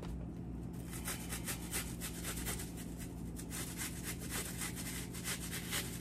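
Onion being grated on a flat handheld metal grater: rapid back-and-forth rasping strokes, several a second, coming quicker from about a second in.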